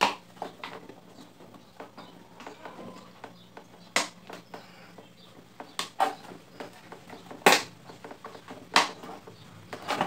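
Plastic clicks and knocks from a desk fan's plastic rear motor cover being handled and fitted onto the motor. The sharp clicks come a few seconds apart, the loudest about 4, 7.5 and 9 seconds in.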